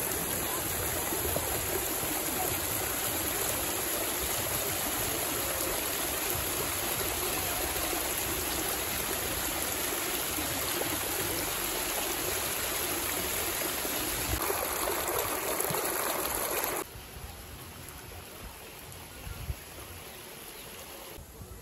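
Waterfall: a steady rush of falling water that cuts off suddenly about three-quarters of the way through, leaving quieter outdoor ambience with a couple of faint knocks.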